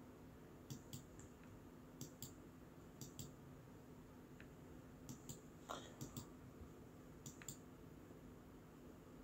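Faint computer mouse clicks, mostly in pairs about a quarter second apart, six or so times over a low steady hum.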